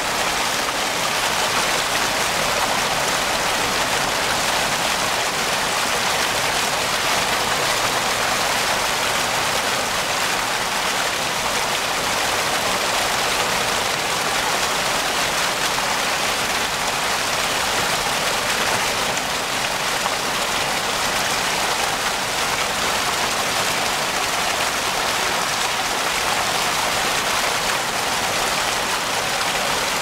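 Turbulent creek water churning and rushing steadily, a continuous even splashing rush with no breaks.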